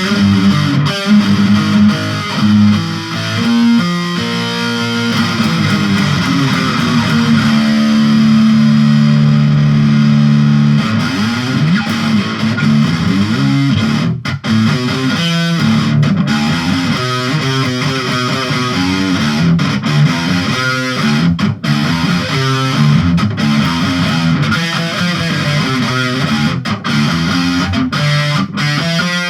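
Distorted electric guitar in drop D tuning playing improvised riffs, with a low chord held for a few seconds about seven seconds in and brief breaks between phrases.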